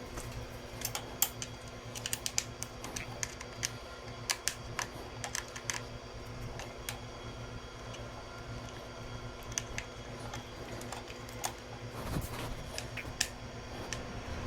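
Irregular light clicks and taps of hand tools and small fasteners while bolts and screws are being undone, with a steady low hum underneath.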